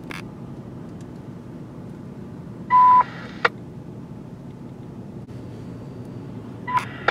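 Police radio scanner between transmissions: a low steady hiss. About three seconds in comes a short, loud, single-pitched beep lasting a fraction of a second, and just before the end a shorter tone chirp.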